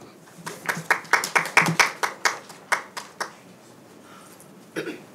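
Thin applause from a small audience: a dozen or so separate hand claps, about five a second, over roughly three seconds, dying away, then one more sharp tap near the end.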